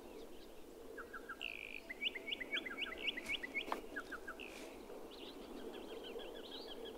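Wild birds calling faintly: quick runs of short, rising chirps, several birds overlapping, over a faint steady background hum. One brief click about halfway through.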